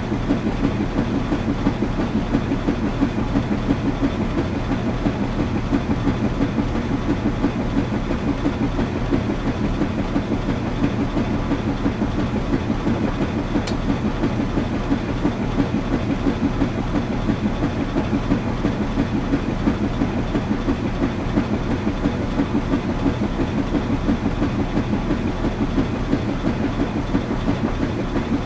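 Washing machine running, a steady low rumble with a fast, even pulsing rhythm and one faint tick about halfway through.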